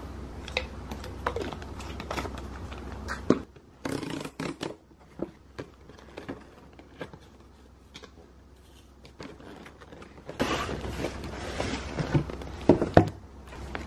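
Handling packaging: a cardboard box's flaps being opened and plastic-wrapped ingredients crinkling as they are lifted out, with scattered clicks and light knocks. The rustling is heaviest near the end.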